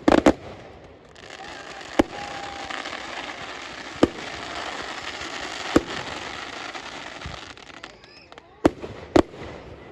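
Display fireworks going off: sharp shell bursts about every two seconds, with a steady hiss between about one and eight seconds in, and two bangs close together near the end.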